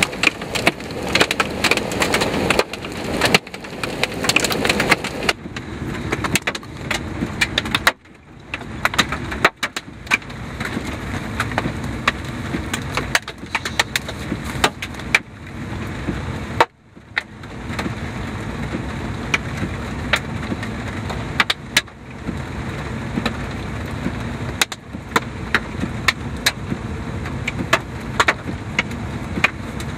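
Large hailstones pelting a car, a dense clatter of hits on the roof and glass for the first five seconds or so. After that comes a steadier rush of noise with scattered sharp hits.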